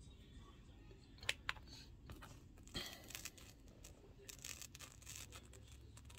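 Faint brushing and scratching of a small nail-liquid brush stroked over a fingernail, with two light clicks about a second in.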